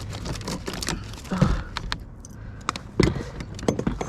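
Irregular clicks and rattles with a few louder knocks, from fishing tackle and the kayak during a fight with a fish.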